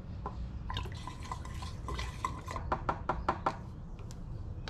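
Techron fuel-system cleaner glugging out of an upturned plastic bottle into a zero-turn mower's fuel tank, followed about halfway through by a quick run of light clicks as the bottle is handled.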